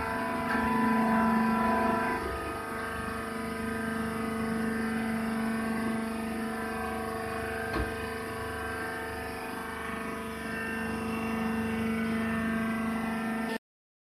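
Hydraulic rice husk baler running: a steady machine hum with a strong low tone and a higher overtone, and a single light knock about eight seconds in.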